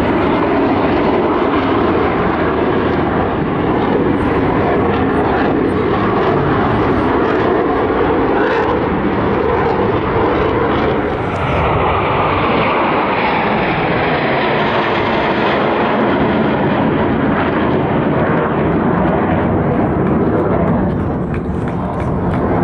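Loud jet engine noise from Blue Angels F/A-18 Super Hornets flying past. About halfway through, the pitch slides downward as the jets go by.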